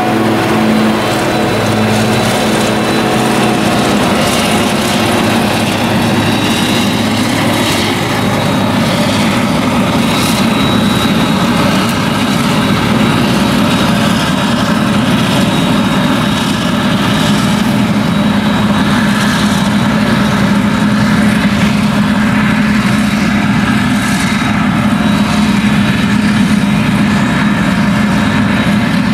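Claas Jaguar 970 forage harvester with a Direct Disc header chopping whole-crop triticale, its engine and chopper running steadily under load. A tractor pulling the forage trailer runs alongside. The engine sound is deeper and stronger in the first couple of seconds, as the machines pass close by.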